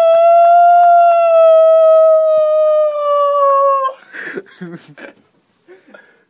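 A man imitating a wolf howl to call a dog: one long, steady howl that sinks slightly in pitch and breaks off about four seconds in. Softer scattered noises follow.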